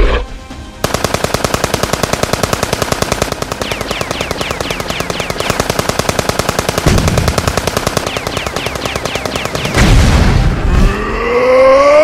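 Cartoon machine-gun fire: a steady rapid burst of about seven shots a second, with two heavy booms about seven and ten seconds in. Near the end comes a loud cry from the toilet monster, its pitch rising and then falling.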